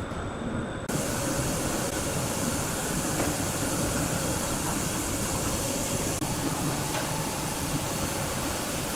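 Wood-cutting saw running through timber: a loud, steady rushing noise with a faint machine hum, which turns suddenly fuller and harsher about a second in.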